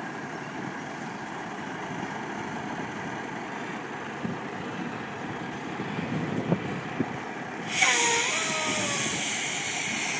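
Semi truck's diesel engine running low and steady as the rig creeps, then about eight seconds in a sudden loud hiss of air venting from the truck's air brake system.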